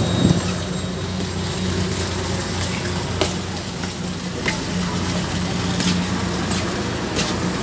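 Steady low machinery hum with a hiss, as of an engine or generator running nearby, with a few light clicks and knocks.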